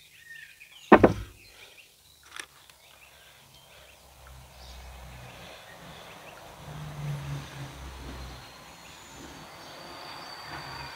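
A sharp knock from the stainless steel mixing bowl about a second in, then a lighter click, as sticky bread dough is scraped out with a spatula and wooden spoon into a cast iron camp oven. Under it runs a low, steady outdoor rumble.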